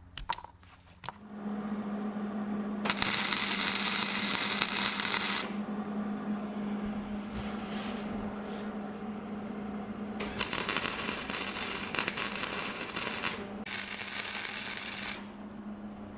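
Stick welding arc crackling in three bursts of a few seconds each, over a steady low hum. A few small clicks come in the first second as a plastic brake-light switch is pushed into its metal sleeve.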